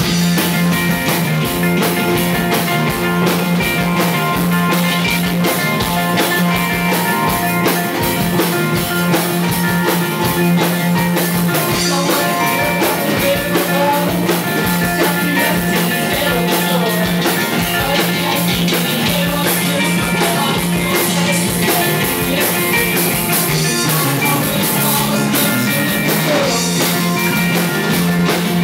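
A live rock band playing a song: drum kit keeping a steady beat under strummed acoustic guitar and bass guitar, loud and continuous. The full band comes in right at the start.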